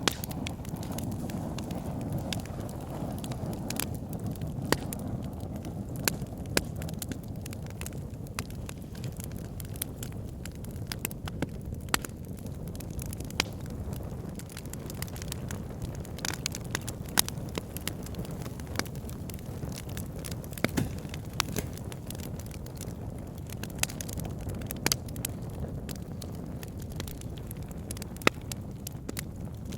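Campfire burning: wood crackling and popping with irregular sharp snaps over a steady low rush of flame.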